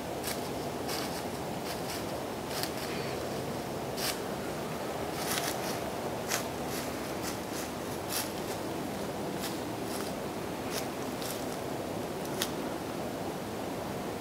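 A young buck stepping through dry fallen leaves: irregular, widely spaced crunching steps over a steady background hiss.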